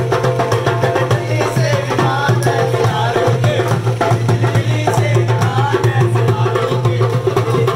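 Hand drums beaten in a fast, even rhythm, with voices singing along and a steady low hum underneath.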